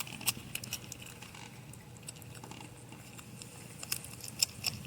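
A porcupine chewing its food: soft, irregular crunchy clicks, a little more frequent near the end.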